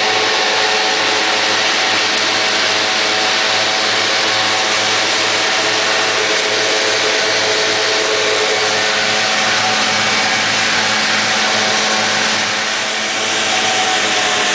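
Valtra S 353 tractor's six-cylinder diesel running steadily under load, heard from inside the cab: a loud, even drone with several steady humming tones, easing slightly for a moment near the end.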